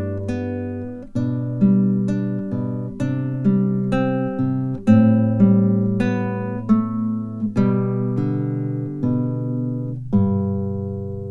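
Background music of a plucked acoustic guitar: a slow melody of single notes and chords, each struck and left to ring, ending on a chord that rings out near the end.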